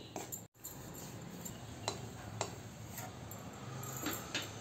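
Faint scattered clicks and light taps of a spatula against an iron kadhai, over a low steady hiss.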